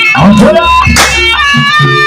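Jaranan gamelan music: a reedy held melody over kendang drum strokes, with an upward sliding drum note early, a deep gong stroke just after half a second, and a sharp crash about a second in.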